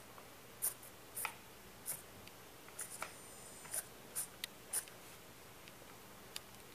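A string of light, sharp clicks and taps, about a dozen spread irregularly over the first five seconds, over a faint steady hiss.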